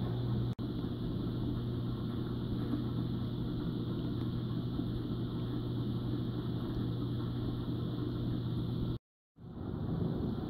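Steady low motor hum with a wash of water noise, typical of a reef aquarium's pumps and water circulation. It cuts out for an instant about half a second in, and again briefly near the end.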